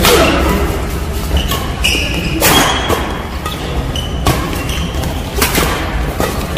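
Badminton rackets smacking the shuttlecock in a fast doubles rally, four or five sharp hits echoing in a large hall, with short squeaks of shoes on the court floor between them.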